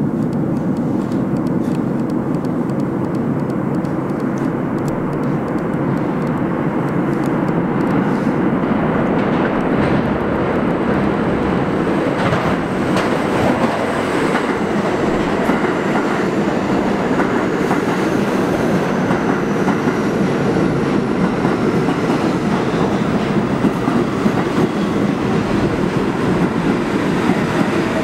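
An R46 subway train comes in through the tunnel and pulls into the station, its wheels clattering steadily over the rail joints. A faint high whine falls slowly in pitch as the train slows.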